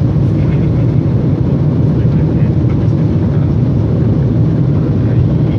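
Airliner cabin noise: the steady low rumble of the engines and rushing air heard from inside the passenger cabin.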